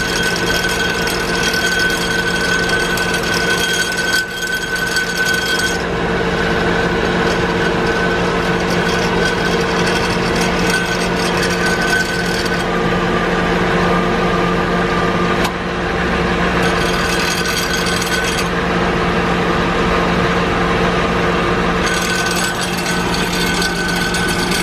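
A van running, giving a steady mechanical drone with several steady whining tones over it: the weird noise the van has been making.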